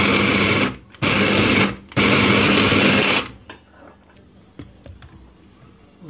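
Electric mini food chopper with a glass bowl grinding frozen lemon and orange pieces into a purée, run in three short pulses of about a second each. It stops about three seconds in, followed by a few faint clicks.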